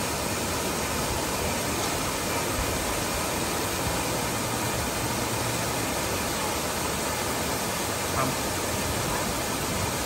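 Steady rush of water from an artificial rock waterfall pouring into a swimming pool.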